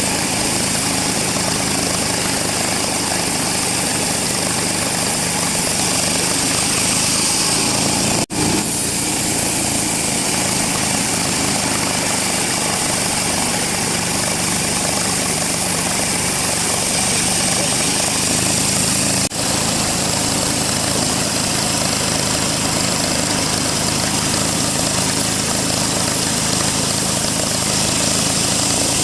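Large sawmill band saw running steadily through teak wood, a loud continuous mechanical noise. It cuts out briefly twice.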